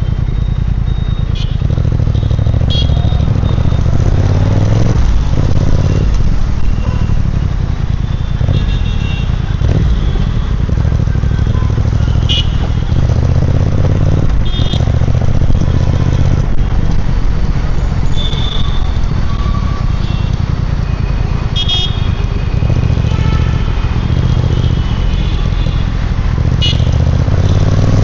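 Triumph Speed Twin 1200's 1200 cc parallel-twin engine and exhaust running under way, a continuous low exhaust note that swells and eases with the throttle.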